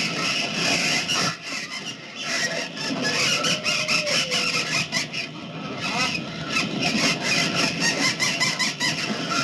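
Sound-effect recording of a flock of birds attacking: many birds screeching and squealing at once, dense and unbroken.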